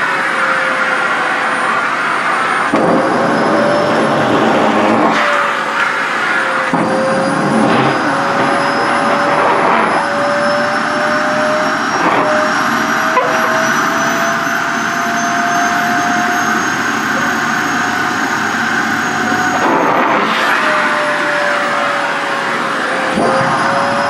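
SHARP EC-KP7F stick vacuum running with a steady motor whine and rush of air while a thin cloth dress is sucked against its nozzle. The whine slowly climbs in pitch and drops back near the end, and the airflow changes suddenly several times as the fabric is pulled in and shifts.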